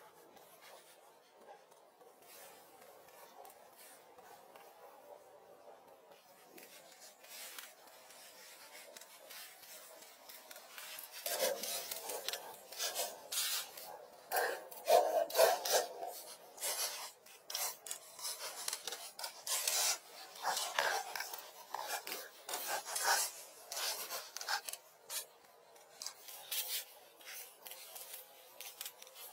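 Fresh palm leaves and bamboo being handled: irregular rustling and scraping as leaves are laid and pressed onto a bamboo lattice and bound with strips. Faint at first, then a busy run of crackly rubbing strokes from about a third of the way in.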